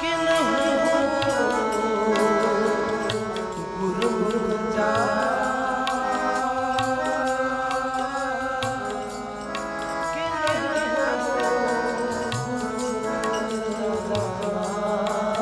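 Kirtan music: tabla drumming under sustained harmonium chords, with a sliding, wavering melody line over them.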